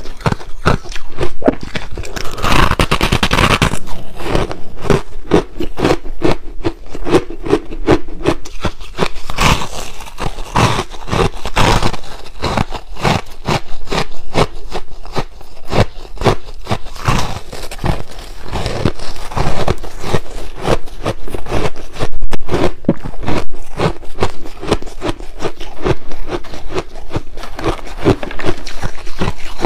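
Freezer frost and shaved ice crunching in many rapid, closely packed crunches, as it is bitten and chewed and crumbled by a gloved hand in a glass bowl.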